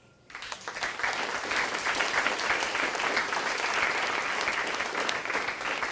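Audience applauding, breaking out suddenly just after the start and keeping up steadily as a dense patter of many hands clapping.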